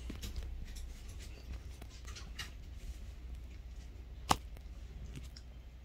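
Small dog mouthing and chewing a plush toy in its fabric bed: soft rustling and scattered small clicks, with one sharper click about four seconds in, over a low steady hum.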